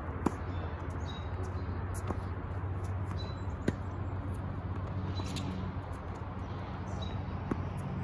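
Tennis rally: a racket strikes the ball sharply about a third of a second in and again just before the four-second mark, with fainter hits from the far end of the court between and near the end. Birds chirp faintly over a steady low hum.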